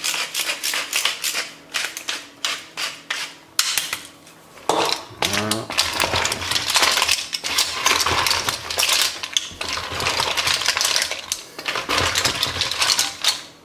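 A pepper mill grinding in runs of rapid clicks and crunches, with mussel shells clattering in the pot.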